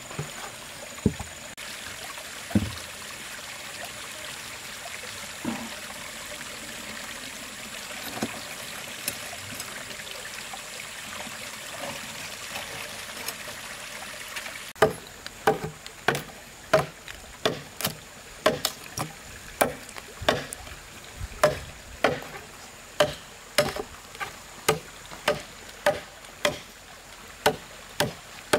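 Small stream running, with a few scattered knocks of wood. About halfway through a regular run of sharp strikes begins, roughly two a second: a machete blade being beaten into an old wooden plank with a stick to split it.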